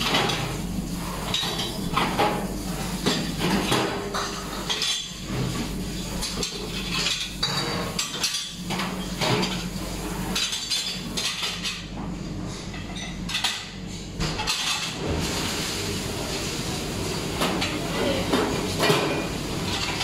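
Ceramic plates, bowls and metal spoons clinking and clattering irregularly as they are set into a plastic dish rack on a stainless steel table, over a steady low hum.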